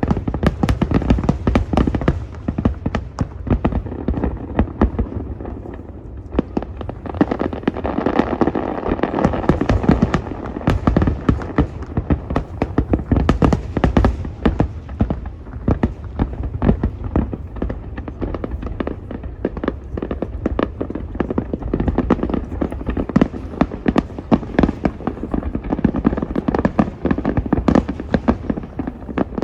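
Fireworks display in a dense, continuous barrage, with many sharp bangs overlapping in rapid succession.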